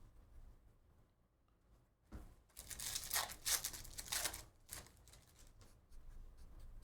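Foil trading-card pack wrapper being torn open and crinkled, a run of rustling tears starting about two seconds in and trailing off into fainter rustling.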